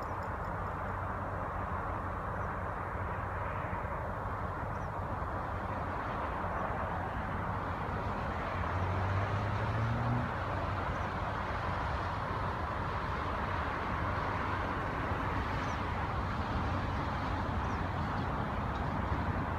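Steady distant rumble of an approaching freight train's diesel locomotives, with a low engine drone that rises briefly about nine or ten seconds in. A few faint high chirps sound over it.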